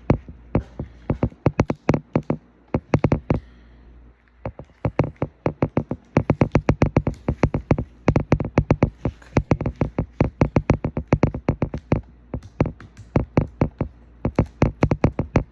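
Rapid run of sharp plastic clicks and taps from a prying tool working at a laptop's screen connector, several a second, with a short pause about four seconds in.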